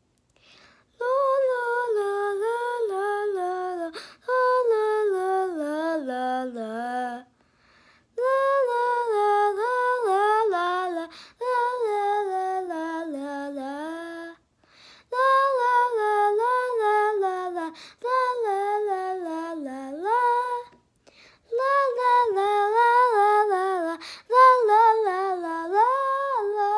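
A young girl singing a vocal exercise: about eight short phrases, each stepping down from a high note to a low note.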